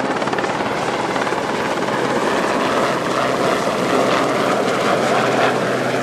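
Westland Sea King ASaC7 helicopter flying past. Its main rotor and twin turboshaft engines run steadily and loudly throughout.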